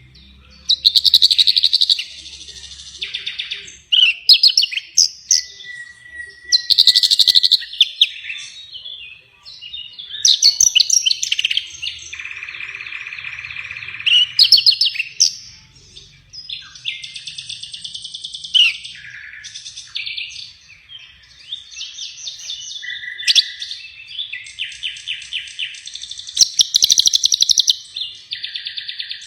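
A songbird singing nonstop and loudly ('gacor'), one high-pitched phrase after another: fast trills, repeated chirps and buzzy rattles, with only short pauses between them.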